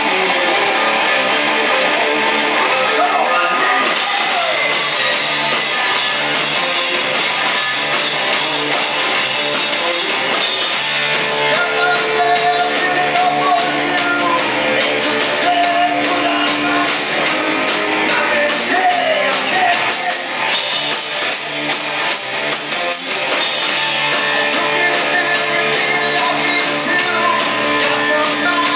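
Rock band playing live: electric guitar and drum kit, with a male voice singing into the microphone over them.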